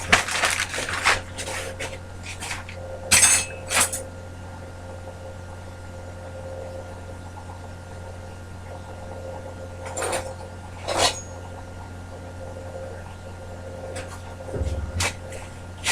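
Small hard items being handled and set down: clinks, knocks and rustles, thickest in the first few seconds, with a few more later, over a faint steady hum.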